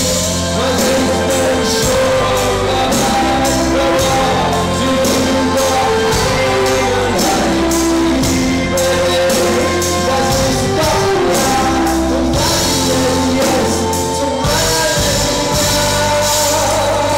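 Live band playing a song loudly, with singing, guitars, bass and a steady drum beat.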